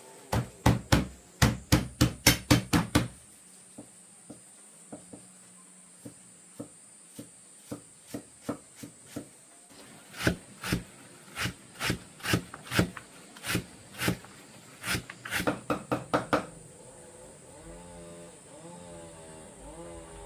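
Rapid chopping strikes on wood, about four a second: a loud run at the start, lighter scattered taps, then a second run in the middle.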